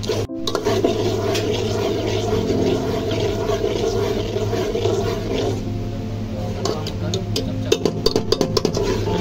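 A metal spoon stirring sugar syrup in a cooking pot, scraping along the pot over a steady low hum. There is a quick run of clinks against the pot near the end.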